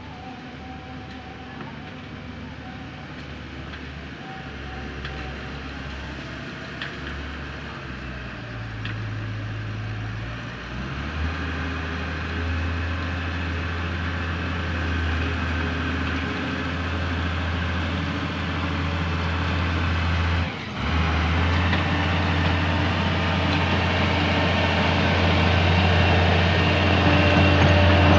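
Komatsu GD405A motor grader's diesel engine running steadily as it works gravel aggregate, growing much louder as the grader comes close.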